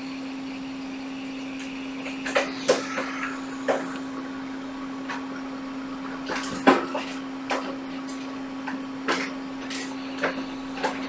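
Steady hum of a hot-air rework station blowing on a laptop motherboard, with scattered sharp clicks and taps of metal tweezers working a small diode loose.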